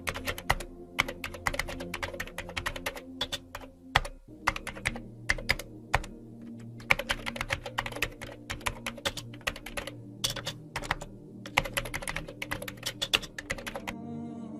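Computer keyboard typing sound effect: rapid runs of keystroke clicks in bursts with short pauses between them, stopping shortly before the end.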